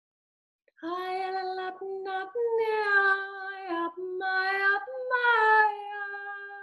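A woman's voice singing long, wordless held notes, starting about a second in, in about four phrases that step between a few pitches: light-language toning.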